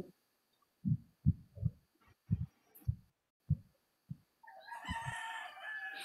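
A rooster crowing in one long call during the last second and a half, preceded by a series of short, soft low thumps.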